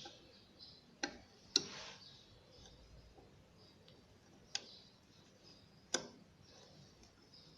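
Sharp clicks and knocks of a new mixer-tap handle and its fixing screw being fitted by hand: four separate clicks a few seconds apart, the loudest about one and a half seconds in, followed by a brief scrape.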